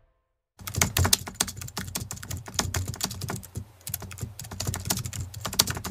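Computer-keyboard typing sound effect: rapid, irregular key clicks that start after a brief silence about half a second in.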